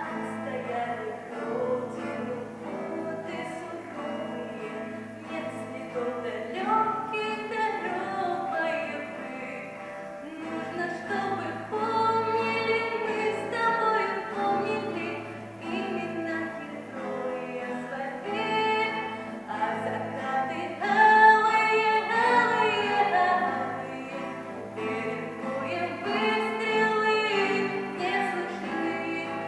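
Young vocal trio, a girl and two boys, singing a Russian song together over an instrumental accompaniment.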